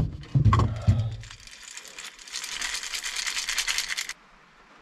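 A few knocks as a slow-feeder dog bowl is lifted, then dry dog kibble rattling fast and steadily in the bowl for about two and a half seconds as it is shaken, cutting off sharply near the end.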